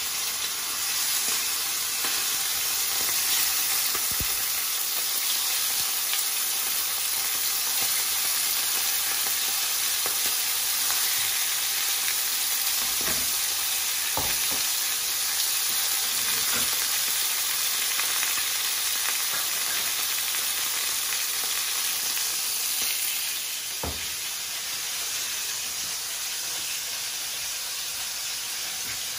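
Thin marinated chicken escalopes frying in hot oil in a stainless steel sauté pan: a steady sizzle, with a few soft knocks along the way, easing a little near the end.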